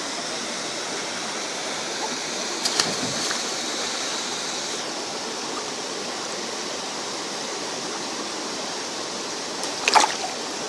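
Steady rush of falling and flowing water at Klong Plu waterfall, with two brief sharp noises, one about three seconds in and a louder one near the end.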